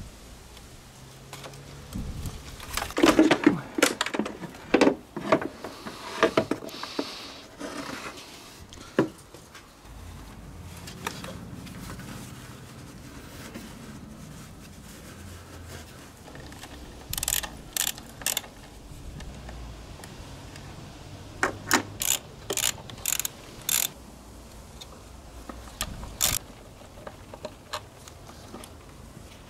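Irregular clicks, knocks and scrapes of hand tools and parts being worked in a car's engine bay, in bursts, with short runs of sharp clicks in the second half.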